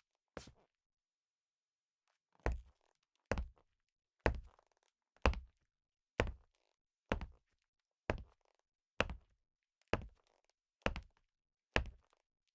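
Leather-soled shoes walking slowly on a wooden floor, each step a sharp knock. One step, a pause of about two seconds, then an even pace of roughly one step a second.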